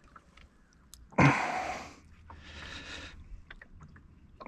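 A man's sharp, loud breath out about a second in, followed by a softer breath a second later.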